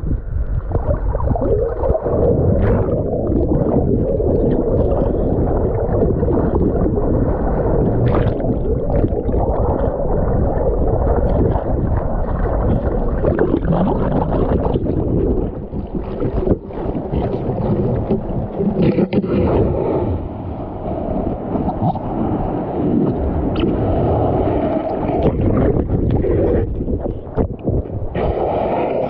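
Shallow surf heard from underwater through a waterproof camera housing: a continuous, muffled rumble and gurgling of moving water.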